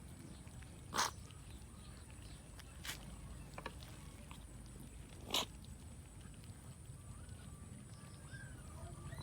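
Cats eating rice, with a few sharp clicks from the feeding, the loudest about a second in and about five seconds in. Faint short high chirps near the end.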